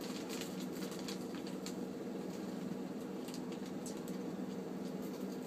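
A steady low hum with a few faint held tones in it, and scattered light clicks and taps over it.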